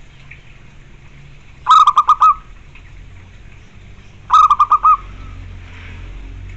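Zebra dove (perkutut) cooing: two quick phrases of four or five clipped notes each, about two and a half seconds apart.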